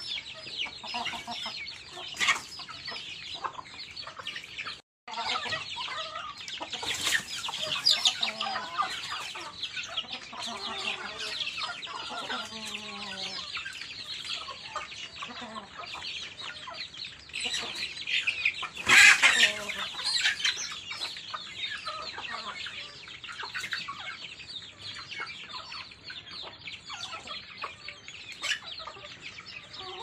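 A flock of chickens feeding: a continuous chorus of high-pitched chick peeping mixed with hens clucking, with one louder call about two-thirds of the way through. The sound cuts out for a moment about five seconds in.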